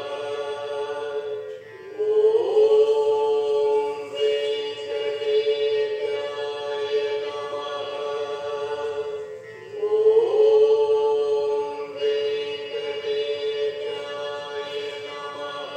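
Hindu devotional mantra chant, sung in long notes held on one pitch. A new phrase opens with a short upward slide about two seconds in and again about ten seconds in.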